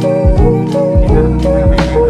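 Background music with a steady beat under sustained melodic notes.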